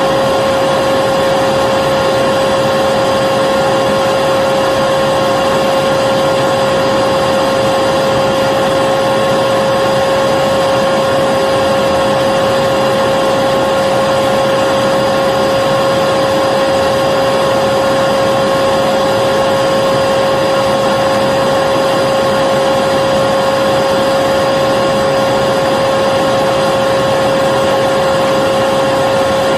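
Vacuum cleaner running steadily: a continuous motor drone with a steady whine over a rush of air, unchanging throughout.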